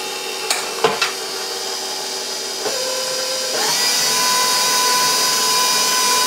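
KitchenAid Professional stand mixer running with its dough hook turning through flour. The motor whine steps up in pitch and gets louder twice, about two and a half and three and a half seconds in, as the speed is raised. There are a few sharp clicks around the first second.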